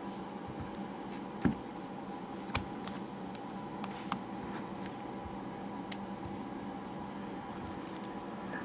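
Handling clicks and taps of an OtterBox Defender phone case as its silicone skin is worked around the hard plastic shell: four short clicks, the loudest about a second and a half in. A steady background hum runs underneath.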